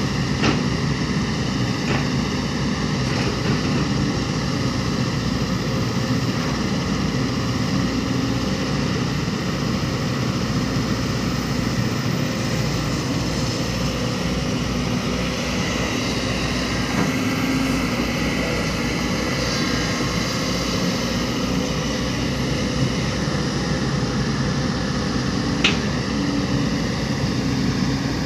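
Heavy diesel engines of earthmoving machinery running steadily, with a few short sharp knocks, the loudest near the end.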